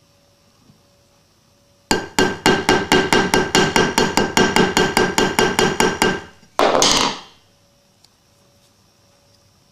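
Ball peen hammer tapping the pivot pin of a slip-joint folding knife whose bolster rests on a hammer head, peening the pin to tighten the loose pivot and take out blade play. About two seconds in, a quick, even run of about twenty light metal-on-metal taps, roughly five a second, each with a short ring. A brief burst of rougher noise follows just after.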